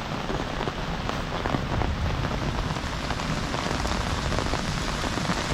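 Heavy rain falling steadily: a dense, even hiss with the patter of many individual drops.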